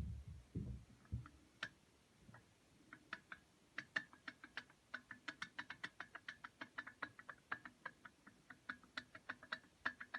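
A clutch friction disc rocked back and forth on a splined gearbox shaft, its hub clicking against the splines at about four clicks a second once it gets going. The play is the sign of wear that the mechanic takes for a most likely finished disc.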